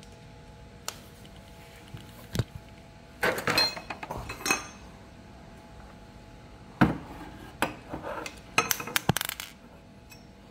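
Metal tools and parts clinking and clattering in irregular bursts, busiest about three to five seconds in and again near nine seconds in, over a faint steady hum.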